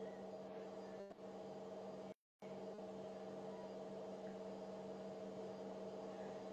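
Faint steady hum made of a few level tones. It cuts out completely for a moment about two seconds in, and there is a small click about a second in.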